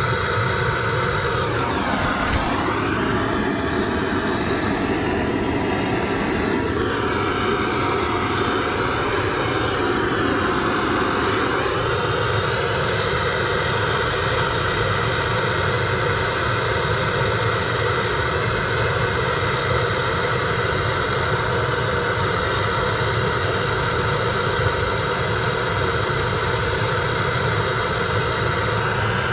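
Handheld gas torch burning steadily as it heats a copper pipe joint while the solder is drawn into the joint. The tone of the flame shifts a few times in the first dozen seconds, then settles into an even hiss.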